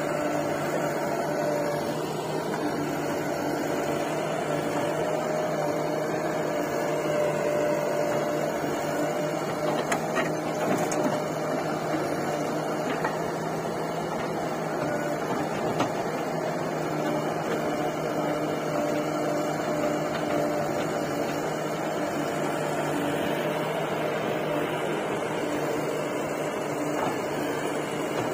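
Diesel engines of a JCB 3DX backhoe loader and a Sonalika tractor running steadily, with a few faint knocks as the backhoe works.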